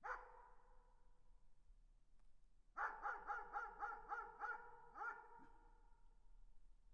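A dog barking: one bark, then a fast run of about eight barks, each followed by a ringing echo.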